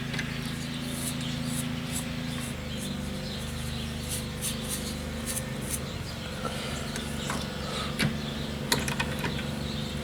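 Drill press running with a steady hum while a hole is drilled into a shell holder block, the hum shifting slightly a couple of seconds in, with scattered light clicks and scrapes.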